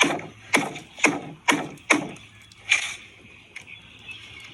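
Knife cutting through a turkey's feathered skin in quick strokes: five about half a second apart, then another a little later.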